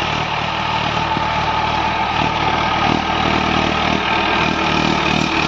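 Mahindra Arjun Ultra-1 555 DI tractor's diesel engine running steadily as the tractor drives across a tilled field.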